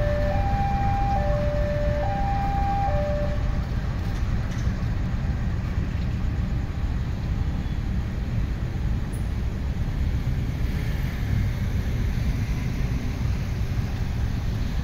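Level-crossing warning alarm alternating between a high and a low tone, about a second each, that stops about three and a half seconds in. Underneath, a CC206 diesel-electric locomotive and road traffic make a steady low rumble.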